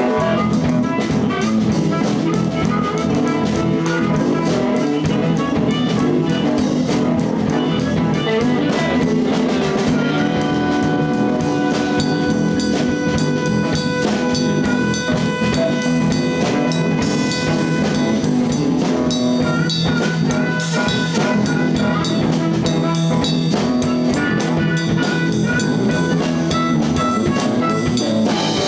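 Live blues band playing: guitar, bass and drum kit, with a steady fast cymbal beat and long held notes in the middle.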